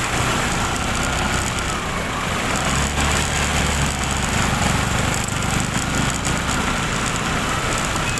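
Small motor scooter engine running under way through shallow floodwater, the front wheel throwing up splashing spray over a steady rush of water noise. The engine hum grows louder from about two and a half seconds in to about five seconds in.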